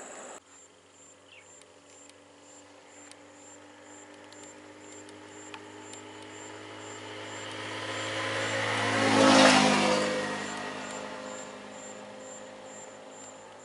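A motor vehicle approaching and passing close by, its engine and tyre noise rising slowly to a loud peak about nine seconds in and then fading away.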